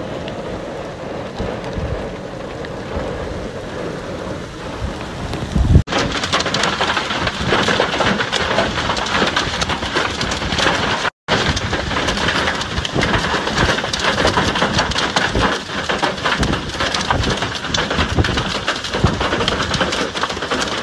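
Hailstorm: hail and heavy rain pelting the ground in a dense, crackling clatter. It is softer for about the first six seconds, then suddenly much louder, with a split-second dropout about eleven seconds in.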